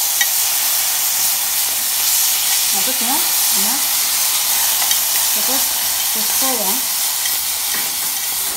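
Rice and soy sauce sizzling in hot olive oil in an aluminium pot over a gas flame: a steady frying hiss as the rice toasts brown.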